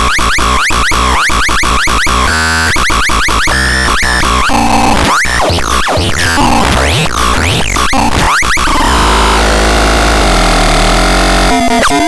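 Synthesizer being demonstrated: a fast run of short, sweeping electronic notes, about five a second, with a brief buzzing stretch about two seconds in. It moves into a steady noisy drone over a low hum, then a new warbling pattern starts near the end.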